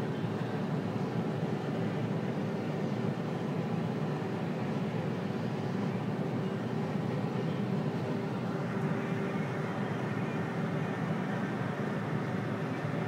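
Tractor engine running steadily under load, heard from inside the cab as an even hum.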